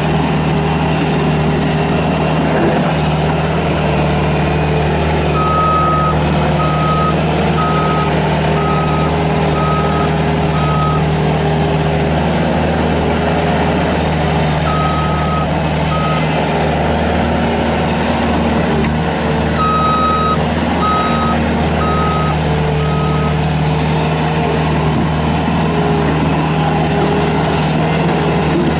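Bobcat S250 skid steer's Kubota diesel engine running steadily, with its backup alarm beeping in three spells as the machine reverses: about six beeps at roughly one a second, then two, then four.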